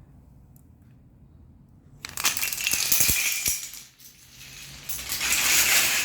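Kapla wooden planks tumbling and clattering against each other and the floor as a stacked plank tower collapses. A sudden crash about two seconds in, then a second longer wave of clatter from about five seconds in.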